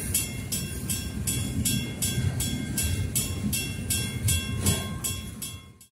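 Railroad grade-crossing warning bell ringing at about two and a half strikes a second over the low rumble of a freight train's flatcars rolling past. The sound cuts off abruptly near the end as the recording stops.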